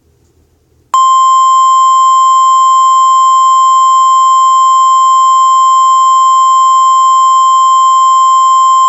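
Emergency alert attention tone: a single loud, steady high-pitched tone that starts abruptly about a second in and holds unchanged for about eight seconds before cutting off.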